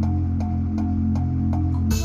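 Bass-heavy electronic music played through a car stereo on an Alpine IDA-X200 head unit, with a steady ticking beat about three times a second; near the end a sharp hit and the bass line changes.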